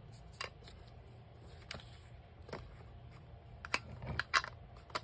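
A few light taps and paper rustles from handwork on a desk: a round ink tool dabbed onto a sheet of paper and the paper being handled. The sounds come singly, every second or so, with a louder pair of taps a little after four seconds in.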